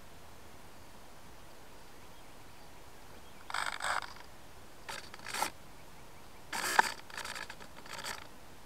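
A faint steady hiss from the onboard camera on an RC P-51D Mustang model, then from about three and a half seconds in a string of short scraping and knocking noises as the airframe is moved. The loudest is a sharp knock a little before seven seconds.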